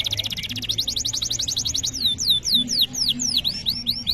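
Male domestic canary singing a rapid high trill that changes, about halfway through, into a slower run of downward-sweeping whistled notes, roughly four a second.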